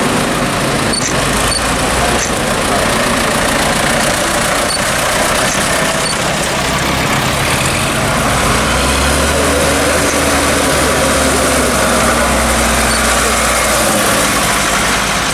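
A blue Ford tractor's diesel engine running as it drives slowly up and past, with other tractors in the line behind it. The low engine drone is strongest in the second half, as the tractor comes closest.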